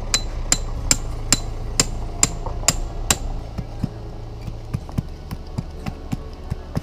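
Hammer blows on a metal stake, eight evenly spaced ringing strikes about two a second, followed by lighter, irregular taps.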